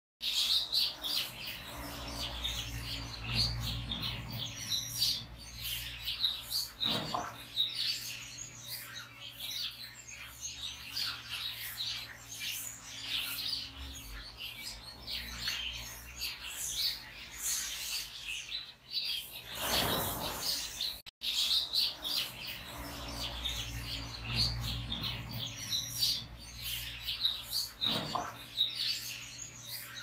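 A flock of goldfinches and canaries chirping and twittering, many short high calls overlapping without pause, over a steady low hum.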